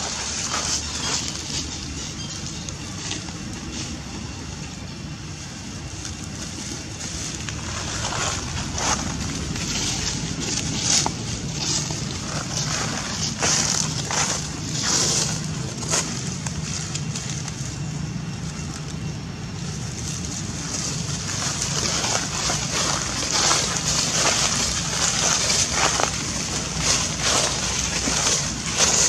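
Dry fallen leaves crunching and rustling underfoot, with irregular crackles that come thicker in places.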